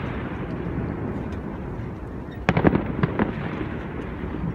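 Fireworks bursting: a quick cluster of about four sharp bangs about two and a half seconds in, each trailing off in a rolling echo, over a steady low background rumble.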